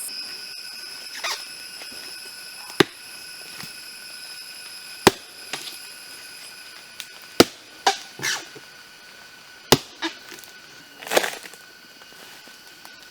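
An axe striking wood in sharp, single chops about every two seconds, with softer scraping sounds between the strikes.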